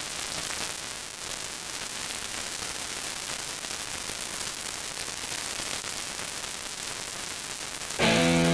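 Steady, even hiss like static, with no clear engine note in it. Guitar music starts abruptly near the end.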